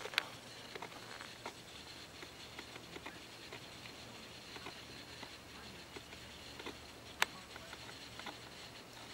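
Sandhill crane foraging on dry ground, its bill pecking and probing among dead leaves and grass: scattered soft ticks and rustles, with two sharper clicks, one right at the start and one about seven seconds in.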